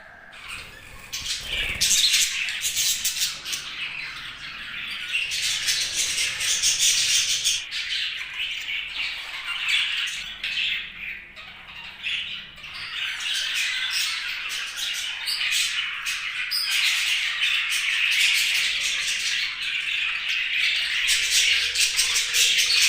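Budgerigars chattering continuously in a dense run of quick chirps. It is quieter for the first moment, then busy from about two seconds in.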